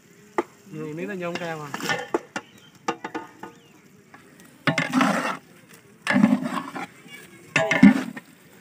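Long metal spatula stirring and scraping through a thick masala mixture in a large aluminium cooking pot, in several separate strokes, the loudest in the second half.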